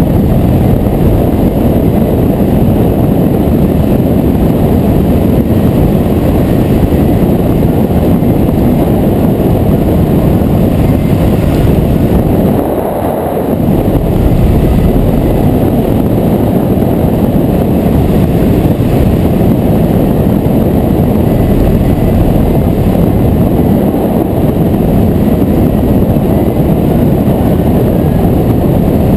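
Wind rushing over the microphone of a harness-mounted action camera in flight: a loud, steady, low rumble that eases off briefly about halfway through.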